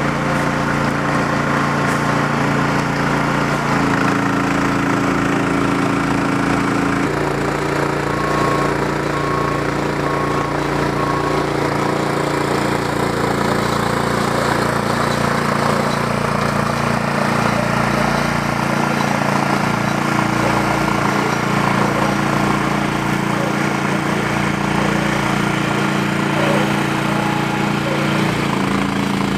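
Power cart's Yanmar diesel engine, 36–37 hp, running steadily while it drives a round baler through its power take-off, its pitch shifting in steps a few times.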